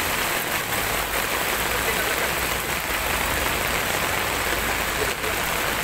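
Heavy tropical rain falling steadily onto floodwater and pavement, a dense even hiss, with a low steady hum underneath.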